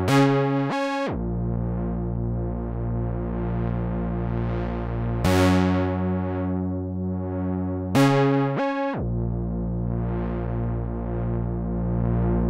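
Behringer Model D analog monosynth holding long, buzzy bass notes that change a few times, sliding down in pitch about a second in and again near nine seconds. The filter cutoff is turned by hand so the tone slowly brightens and darkens, with a slow pulsing in the sound.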